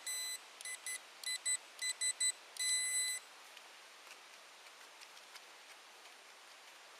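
XPointer pinpoint probe beeping on a coin target in the dig: one steady high tone in a quick run of short beeps, ending in a longer beep about three seconds in.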